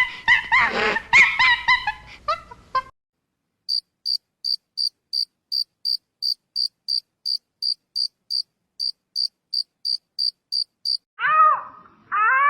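Cricket chirping in an even rhythm, about three and a half high chirps a second, for some seven seconds. Before it, high wavering cries stop about three seconds in; near the end, a bending, whining animal call starts.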